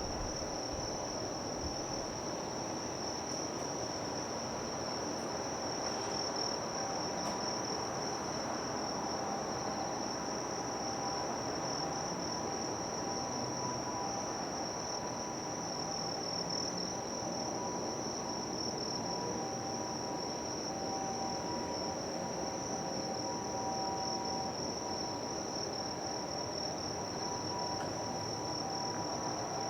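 A steady, high-pitched chorus of insects chirring without a break, over a low, even background rumble of the harbour and city.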